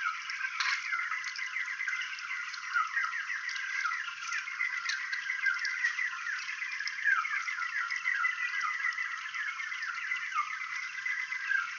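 Hydrophone recording of salmon underwater: a dense chorus of short, downward-sliding chirps, many overlapping, over a steady hiss. It sounds thin, with no bass.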